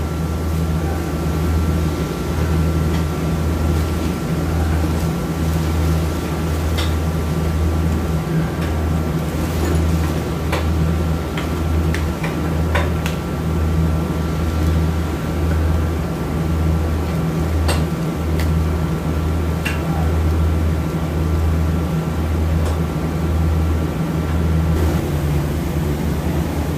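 Low mechanical hum that pulses on and off about once a second, with a few scattered sharp clicks of hand tools on an automatic transmission valve body.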